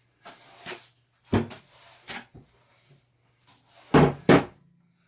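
Cut 2x4 boards being handled and set down: a few light wooden knocks, then a loud double knock near the end.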